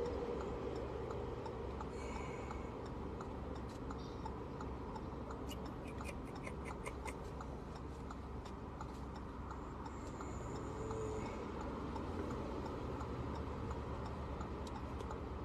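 Quiet car-cabin background: a low steady rumble with scattered faint clicks, and a quick run of small ticks, about five a second, some six seconds in.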